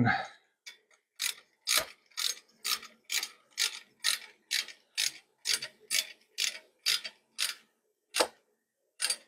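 Hand socket ratchet clicking in short, even strokes, about two a second, as it tightens the crash bar's mounting bolts; the strokes stop near the end, with two last single strokes.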